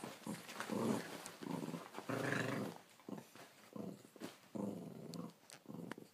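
Small dogs growling in short repeated bursts while play-fighting on a bed.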